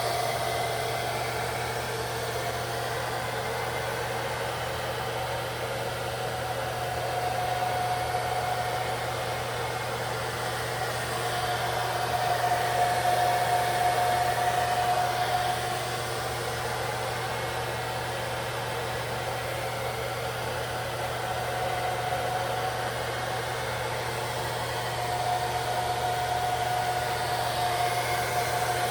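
Hair dryer running on low, held close to dry lace-wig adhesive: a steady airy whir with a hum that swells and fades a few times.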